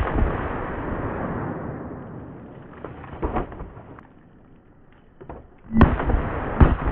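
AK-47 rifle in 7.62x39 firing single full-metal-jacket shots into water-filled bottles. There is a shot right at the start, a quieter one about three seconds in and two more close together near the end, each trailing off in a long echo.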